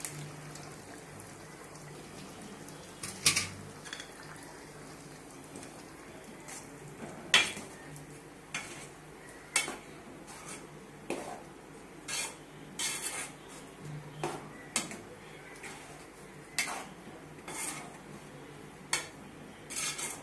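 Metal ladle stirring a thick egg and gram-flour curry in an aluminium pot, knocking and scraping against the pot's side in sharp separate strikes. The strikes are few at first and come about once a second in the second half.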